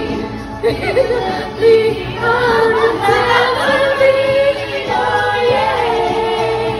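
Female a cappella group singing in close harmony, several voices holding long notes with no instruments.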